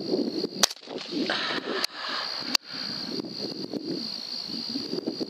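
Sharp cracks of a .308 AR-10 rifle firing: two loud shots about two seconds apart, the first about half a second in, with a fainter crack between them. A steady high whine runs underneath.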